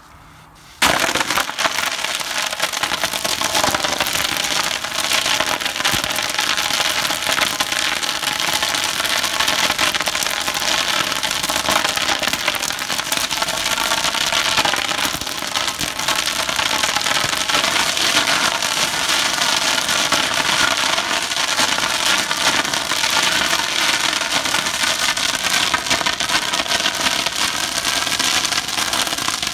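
A fire hose fog nozzle opens about a second in, giving a loud, steady rushing hiss of water spray, with crackling as the water hits burning triethylaluminum and the fire flares up violently in reaction.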